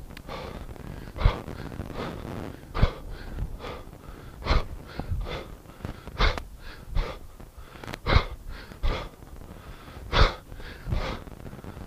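A man's hard, effortful breathing during a set of overhead kettlebell presses, with a sharp, forceful exhale about every two seconds, one per rep, and quicker breaths between.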